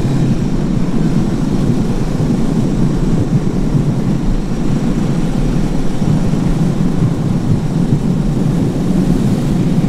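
Wind rushing over the microphone of a motorcycle riding at road speed, a steady low rumble, with the Suzuki DR 650's single-cylinder engine running underneath.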